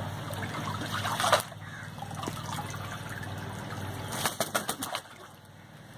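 Pond water splashing around a rooster held and lifted by hand. There is a sharp splash about a second in, a low steady hum underneath at first, and a quick flurry of splashing and dripping a little after four seconds as the wet bird comes out of the water.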